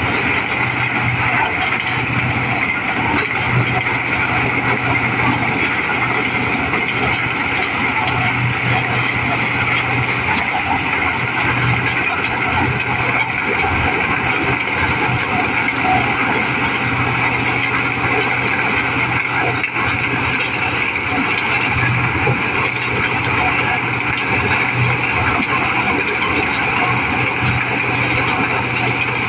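Mobile diesel-powered corn sheller running steadily under load, shelling unhusked corn cobs: a loud, constant mechanical din of engine and threshing drum, with kernels pouring out of the chutes.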